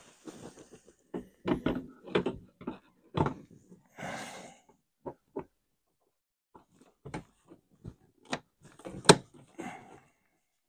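Plastic knocks, clicks and a short scraping rustle as a cabin air filter cartridge is slid into its plastic housing under the cowl of an S197 Ford Mustang and clipped in. The knocks come in a scattered string, and the loudest, sharpest one comes near the end.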